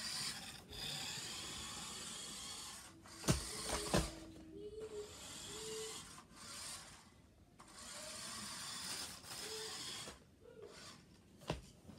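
Toy remote-control car's small electric motor whirring in bursts as it is driven back and forth on carpet, with two sharp knocks about three and four seconds in.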